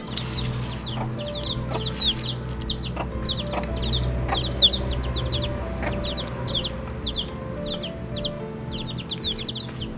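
Small birds chirping steadily, a dense run of quick falling chirps several times a second, over soft background music. There are a few light clinks of a steel ladle against the metal plates.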